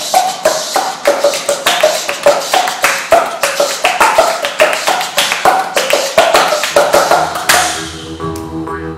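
Body percussion: fast, even chest slaps and hand claps in a tight rhythm. About three-quarters of the way through it gives way to a swelling whoosh, and held low bowed-string notes begin.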